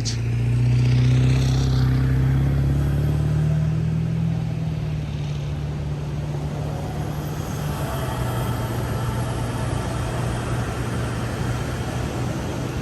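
Ford F-150's 3.0 L Power Stroke V6 diesel pulling the truck through soft beach sand. The engine note rises a little in the first couple of seconds, then holds steady under a rushing noise of tyres and wind.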